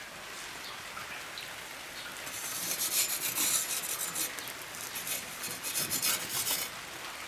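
Metal spatula scraping along a pizza stone as it is pushed under a pizza to lift it, a raspy scrape lasting about four seconds from about two seconds in.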